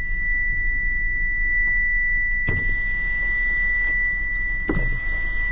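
A steady high-pitched electronic beep tone, held unbroken, over a low steady rumble, with two short knocks about two and a half and four and a half seconds in.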